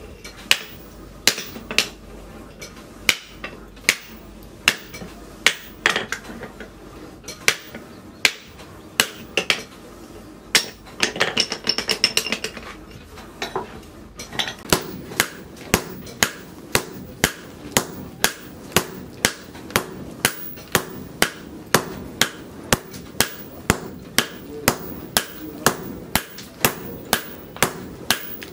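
Hand hammer striking a leaf-spring steel blade on a steel post anvil. The blows come about one a second at first, then a couple of seconds of quick ringing taps, then steadier blows at about three every two seconds.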